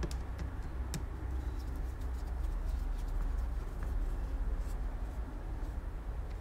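A few faint clicks and light scratching from small carburettor parts being handled at the bench, over a steady low hum.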